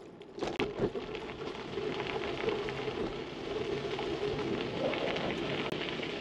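Bicycle tyres rolling over a rough gravel path: a steady crackling hiss of grit under the wheels, with a few knocks in the first second.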